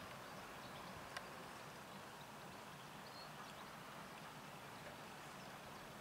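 Merlo TF35.7 telehandler's diesel engine running faintly and steadily while it lifts a pack of small hay bales, with one sharp click about a second in.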